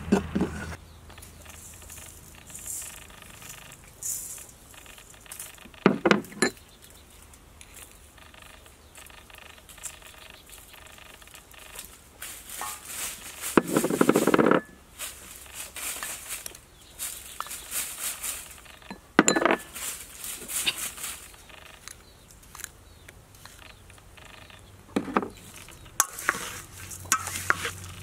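Intermittent knocks, clinks and scrapes of a wooden spoon in a stainless steel bowl of food. A handful of separate clatters come several seconds apart, with the longest and loudest scrape about halfway through.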